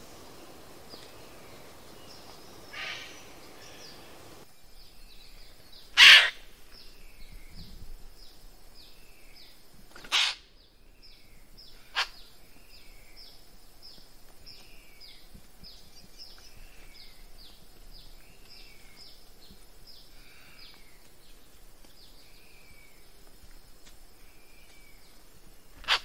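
Western Parotia (Parotia sefilata) giving loud, short, harsh 'shack' calls: three in the first half and one more at the end. Behind them, a small bird repeats high, thin, falling notes a few times a second.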